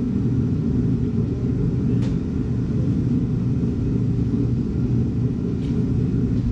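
A motor vehicle running steadily: an even, low rumble.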